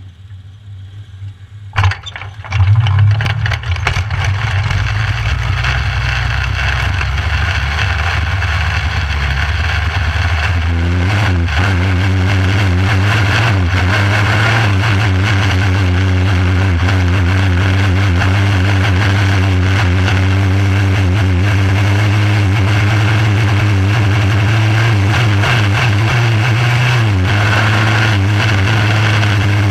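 A micro sprint car's engine, heard from on board, fires up suddenly about two seconds in. It then runs steadily at low throttle while the car circulates slowly on pace laps. Its pitch rises around eleven seconds in and again near the end.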